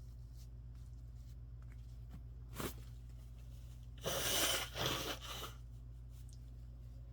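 A person sneezing: a short sharp catch of breath about two and a half seconds in, then one loud, noisy sneeze about four seconds in that trails off in a second gust over about a second and a half. A steady low hum sits underneath.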